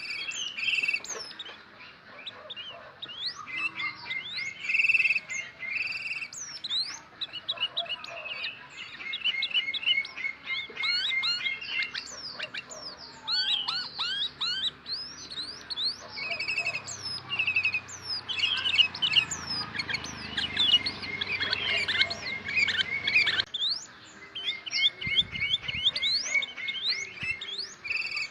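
Sooty-headed bulbul chirping and calling, a busy run of quick chirps sliding up and down in pitch, thickest about two-thirds of the way through.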